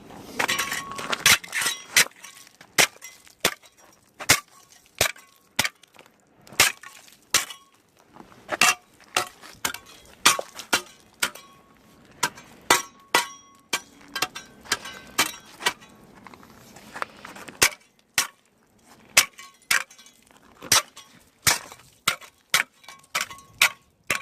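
A homemade ice chipper, a circular saw blade on a metal pipe handle, striking and cracking ice over and over at an irregular pace, up to about two blows a second with short pauses. Several blows leave a brief metallic ring from the blade.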